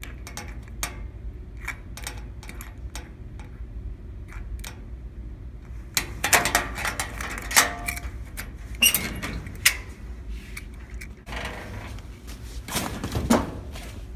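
Combination padlock on a metal locker: light clicks as the dial is turned, then louder metallic clanks and rattles about halfway through as the lock is pulled open and the locker door is unlatched and swung open, with a rustle and another clank near the end.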